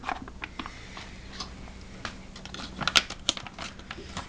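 Irregular light clicks and crinkles of a foil tuna pouch being shaken and tapped to empty it into a pot, with a cluster of louder taps about three seconds in.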